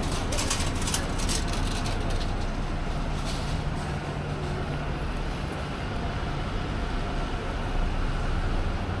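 Street traffic with vehicle engines running steadily at a low pitch, and short bursts of high-pitched noise in the first second and a half and again about three seconds in.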